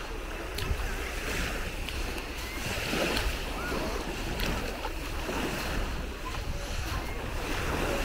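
Small Baltic Sea waves lapping and breaking on a sandy shore, a steady wash of surf, with wind buffeting the microphone.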